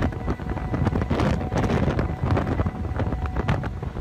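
Hurricane-force wind blowing in gusts and buffeting the microphone.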